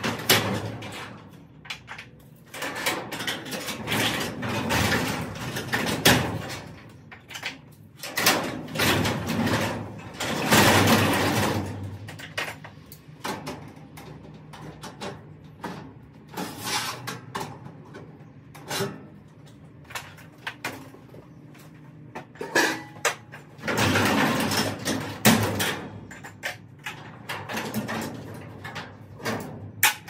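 Sectional steel garage door being raised and lowered by hand, its rollers rattling and rumbling along the metal tracks in several bursts, with sharp knocks in between.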